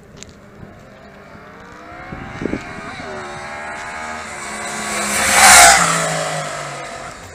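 2010 Yamaha R1's crossplane inline-four with stock exhaust accelerating hard toward the listener, its pitch climbing and dropping back through gear changes. It passes close about five and a half seconds in, the loudest moment, then drops in pitch and fades as it pulls away.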